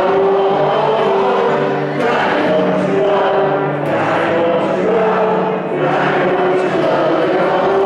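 Live concert band playing, with many voices singing along in unison, in held, steady notes.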